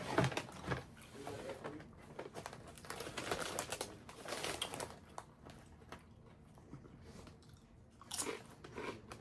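Crunching and chewing of Cool Ranch Doritos tortilla chips: crisp crackling bites in several clusters, with quieter chewing between them.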